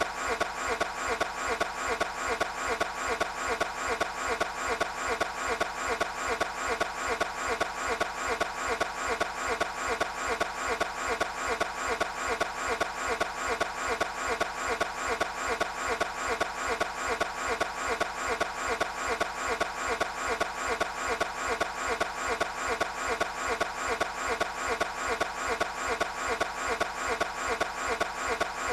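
Toyota 86 engine being cranked over by its starter without catching: a steady churning with a quick, even, repeating beat that never changes, as the engine fails to start.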